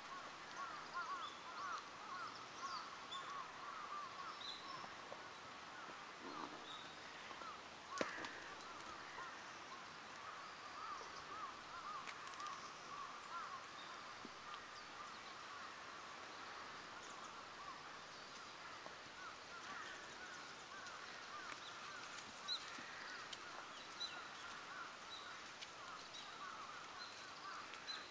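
A flock of birds calling continuously and faintly, a dense chatter of short calls with higher chirps now and then; a single sharp knock about eight seconds in.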